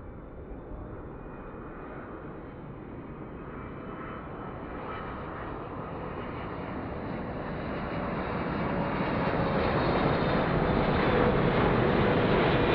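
A Boeing 777-300ER's GE90 turbofans are running at approach power as the airliner comes in to land. Their rushing roar, with a thin whine on top, grows steadily louder as the jet draws near.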